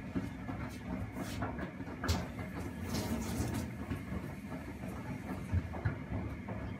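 Primus P6 commercial front-loading washing machine tumbling a load through foamy wash water: a steady drum and motor rumble with water sloshing, and a few louder splashes around one to three and a half seconds in as the laundry drops.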